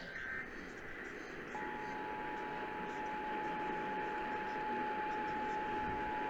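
The tail of an EAS SAME digital data burst, a short warbling chirp, then after a hissing gap the EAS two-tone attention signal (853 and 960 Hz) comes on about a second and a half in and holds steady. Radio static runs throughout.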